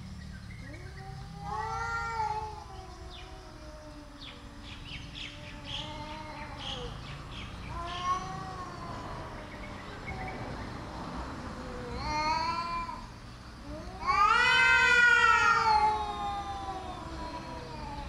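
Two cats yowling at each other in a territorial standoff: long, drawn-out yowls that rise and fall in pitch, coming every few seconds, the loudest and longest about fourteen seconds in.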